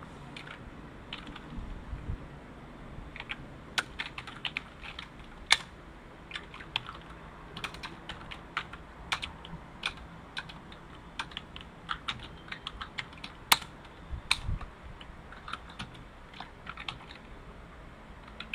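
Typing on a computer keyboard: irregular runs of key clicks, with a couple of louder clacks.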